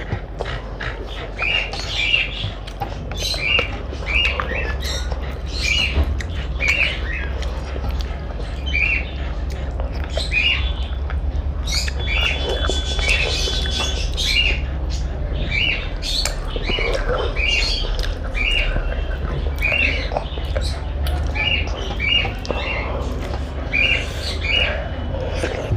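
A bird chirping over and over, short sharp calls at one to two a second, over a steady low hum with scattered small clicks.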